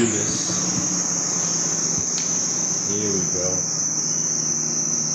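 Honda Transalp's electric starter motor spinning, a steady high-pitched whine with a low hum under it, switched on abruptly by the newly connected starter solenoid.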